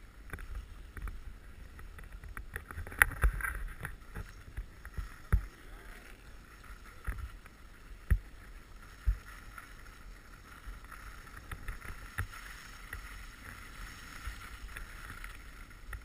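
Skis sliding and scraping over packed snow, with wind rumbling on the microphone and a few sharp knocks.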